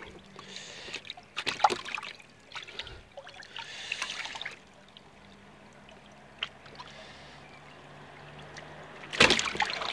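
Water splashing and sloshing in a shallow plastic bowl as a koi is held by hand for a skin scrape: a few sharp splashes in the first two seconds, swishing water around the fourth second, a quieter spell, then one loud splash near the end.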